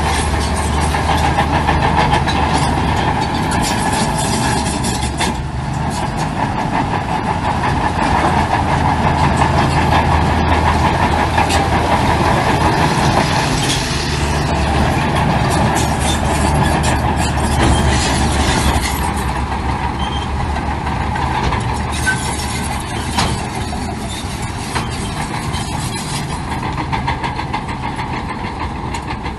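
Heavy diesel earthmoving machinery running steadily: a constant low engine drone with scattered clanks and knocks on top.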